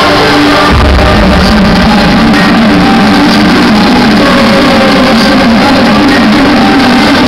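Loud dance music played over a DJ sound system, with a heavy bass line coming in about a second in.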